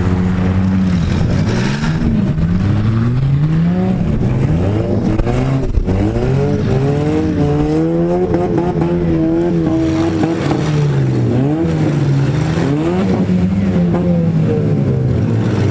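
Engines of several compact demolition derby cars revving at once, their pitches rising and falling and overlapping as the cars accelerate and back off.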